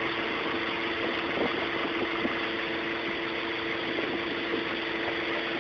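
An engine running steadily, with an even rush of noise and a steady hum.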